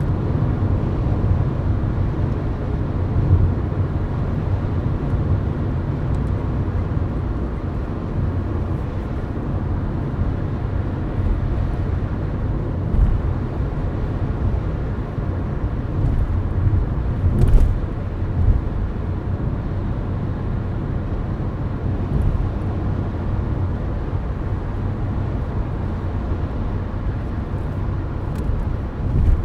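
Steady road and engine noise of a car cruising at highway speed, heard from inside the cabin: a continuous low rumble with tyre noise.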